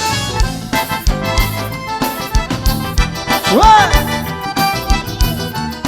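Vaquejada forró band music: an accordion-led instrumental passage over a steady kick-drum beat, with one loud sliding note that rises and then falls about three and a half seconds in.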